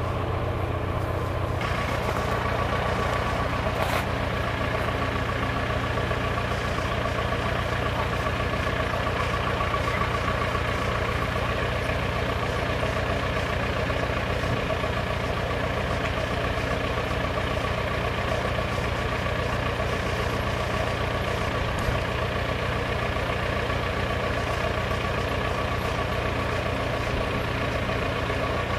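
A vehicle engine idling steadily, a constant drone that holds unchanged throughout.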